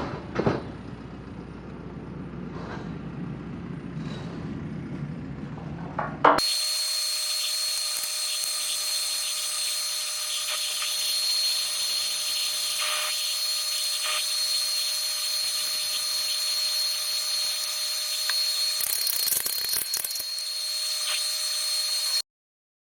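Low rumble with a sharp knock, then a power tool starting abruptly and running steadily: a high whine over a hiss for about sixteen seconds, cutting off suddenly near the end.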